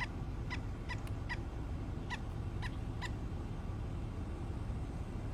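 A bird giving seven short, high-pitched calls, four in quick succession and then three more after a short pause, over a steady low rumble.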